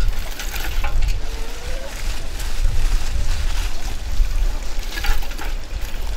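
Wind rumbling on the microphone, with a few light clinks of charcoal lumps as they are set into a metal bucket.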